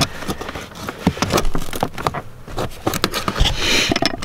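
Pliers working a broken plastic gas-pedal bracket out of a car's floor: irregular clicks, snaps and scrapes of plastic, metal tool and carpet.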